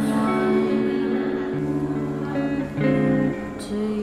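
Background music, a gentle guitar-led track with held notes and chord changes.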